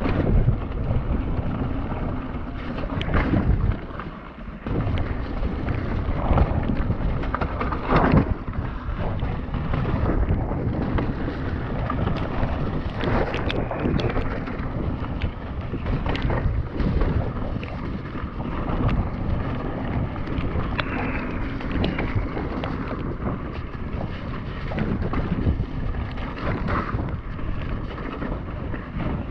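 Wind rushing over an action camera's microphone as a mountain bike rides down a wet trail, with many sharp knocks and rattles from the bike over rough ground.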